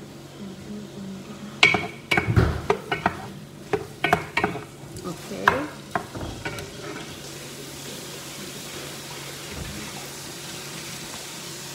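Garlic, onion, lemongrass and ginger frying in a pan, stirred with a wooden ladle. In the first half there are a run of knocks and clatters, some with a brief ring, as the ladle works the pan. After that there is a steady sizzle as the aromatics caramelize.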